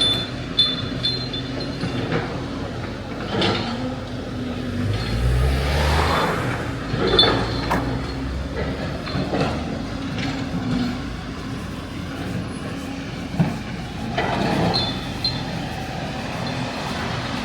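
Motor vehicle noise: a steady engine hum, with an engine note rising about five seconds in. Short high squeaks and a few knocks are heard over it.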